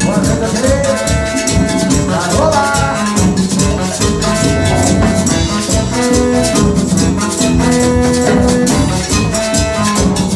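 A band playing an instrumental passage of a Latin dance song, with held melody notes over fast, busy percussion.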